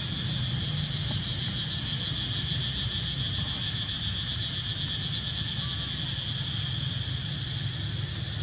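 A steady chorus of insects buzzing in the forest, one high drone that holds without a break, over a low steady hum.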